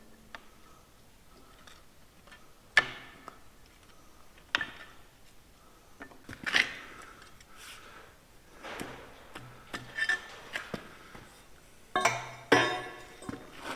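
Metal-on-metal clinks and knocks from a long spanner working the output flange nut on a Centurion tank gearbox, each with a short ring. About seven separate hits come a second or two apart, the loudest near the end.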